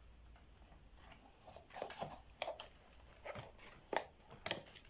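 Faint handling noises as a rubber balloon is stretched over a plastic funnel: scattered soft clicks and rustles, with a couple of sharper snaps near the end.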